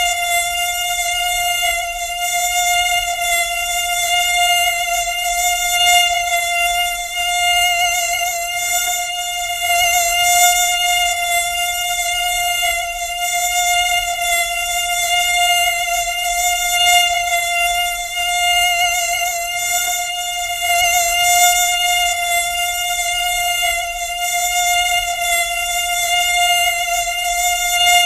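Mosquito wing whine: one steady, unbroken buzzing tone with many overtones, swelling and fading slightly in loudness.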